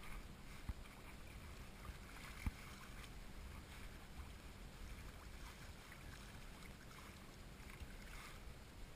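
Faint low wind rumble and water noise around a fishing kayak, with two short knocks: one under a second in and a louder one about two and a half seconds in.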